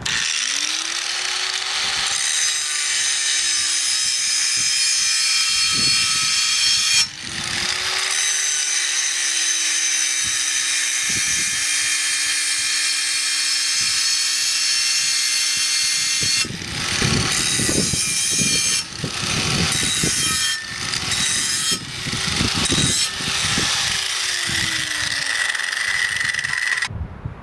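Angle grinder grinding down a metal frame piece to round off its edge. The motor spins up, runs steadily with a high grinding hiss, stops briefly and spins up again about seven seconds in. In the later part the sound turns uneven and its pitch wavers as the disc is pressed into the work, and it cuts off just before the end.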